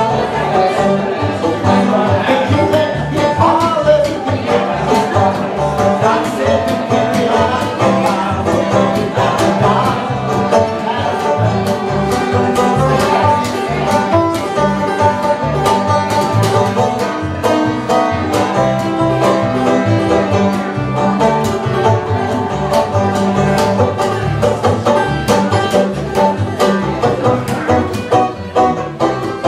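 Bluegrass fiddle, banjo and upright bass playing a tune together: the fiddle carries the melody over rapid banjo picking, with the bass plucking a steady beat underneath.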